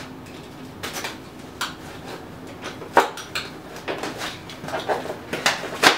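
Irregular clicks, knocks and scrapes of a shipping box packed with styrofoam being unpacked, with the packing worked loose. The sharpest knocks come about three seconds in and near the end.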